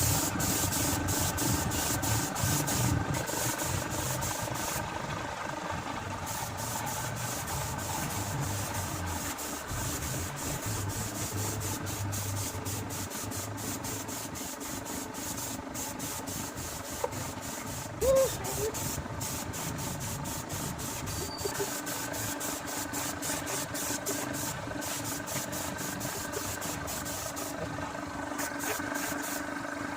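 Fast, steady scratchy rubbing like sanding, with a steady hum underneath.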